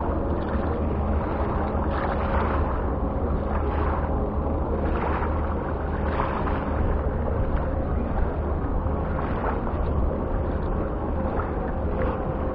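Wind buffeting the microphone: a steady low rumble with surges every second or two.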